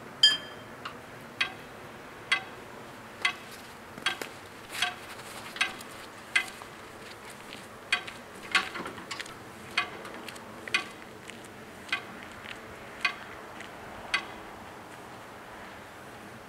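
Level-crossing bell striking single strokes about once a second while the crossing barriers rise. The first stroke is the loudest and rings on. The strikes stop about fourteen seconds in.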